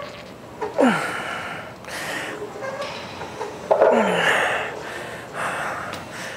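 A man's heavy, forceful breathing as he strains through a single-leg leg press set, with a breath about every second and a half and two short groans falling in pitch, about one and four seconds in.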